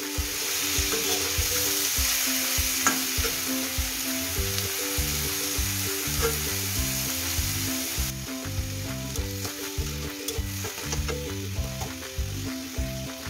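Sliced onions, garlic, ginger and tomatoes sizzling in hot oil in a metal kadai, stirred with a flat metal spatula that now and then clicks and scrapes against the pan. This is the stage of cooking the masala base until it turns soft.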